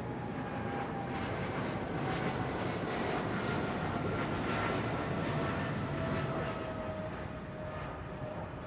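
Jet airliner engines whining over a steady rush, the whine's pitch falling slowly as the aircraft passes. The noise swells to its loudest around the middle and eases off near the end.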